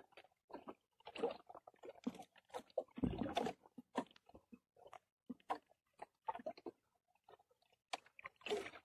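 Handline being hauled in hand over hand in a small boat: irregular light knocks, clicks and rubbing as the line and hands brush the hull, with one heavier thump about three seconds in.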